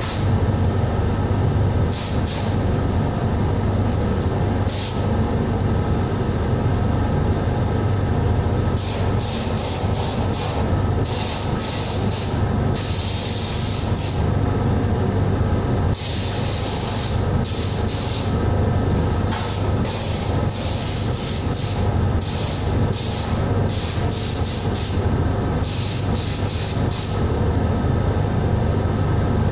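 Compressed-air tool hissing in repeated on-off bursts, some brief and some lasting a second or two, over a steady low machine hum.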